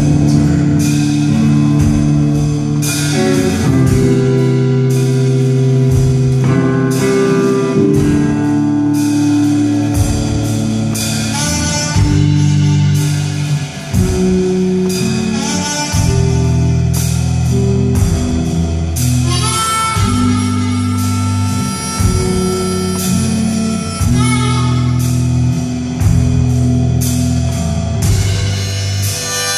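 Live band playing a slow instrumental passage: guitar over steady drums, with no singing. It is heard through a phone's microphone from far back in the hall.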